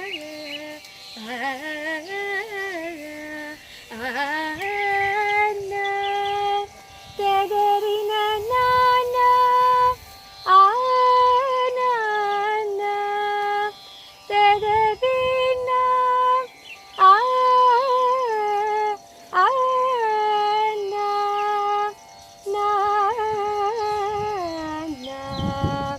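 A solo female voice singing an Indian-style melody of long held notes joined by pitch slides, in short phrases with brief breaths between them.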